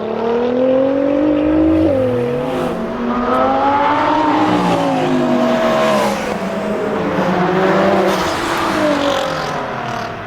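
A high-performance car's engine accelerating hard. The pitch climbs, drops sharply about two seconds in at an upshift, and climbs again. After about four seconds it falls away and wavers.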